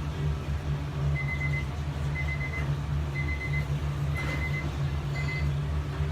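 An electronic beeper sounding five short, high beeps, about one a second, starting about a second in, over a steady low hum.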